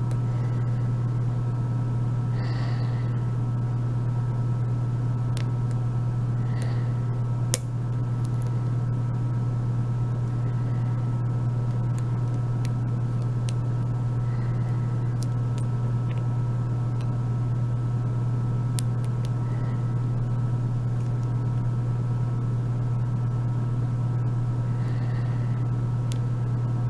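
A steady low hum with faint, scattered clicks of lock-picking tools working the pins of a euro cylinder lock; one sharper click about seven and a half seconds in.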